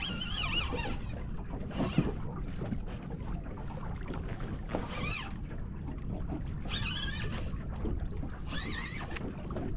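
Steady low wind rumble on the microphone aboard a small boat on open water. There is one sharp knock about two seconds in, and several short high wavering sounds come and go.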